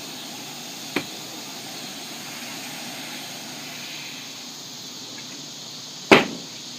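Steady hiss, with a faint tap about a second in and a loud, sharp knock near the end.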